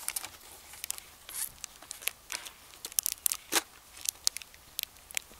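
Thin plastic snack packaging crinkling and crackling, with irregular sharp crackles as it is handled and pulled open.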